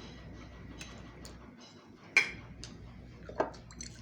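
Close-up eating sounds of fried food: a few scattered sharp clicks and crunches, the loudest about two seconds in and another about a second later.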